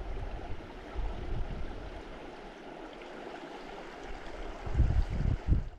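Creek water running steadily, with a few low rumbles near the end.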